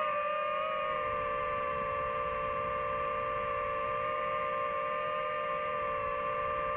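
DJI FPV drone's motors and propellers humming steadily as it slows to a hover, a whine that drops slightly in pitch about a second in and then holds.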